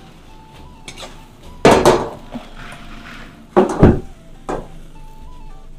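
A ceramic dinner plate set down and shifted on a wooden chopping board: two loud knocks about two seconds apart, then a lighter one.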